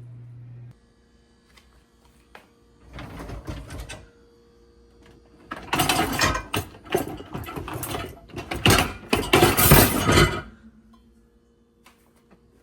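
Household items being handled: a steady hum cuts off just under a second in, then a short bout of rubbing and a longer, louder run of rattling, clattering and scraping.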